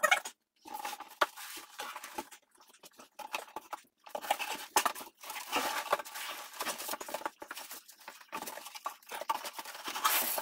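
Corrugated cardboard boxes being handled: flaps rustling and scraping, with irregular knocks and clicks as the box is tipped and slid.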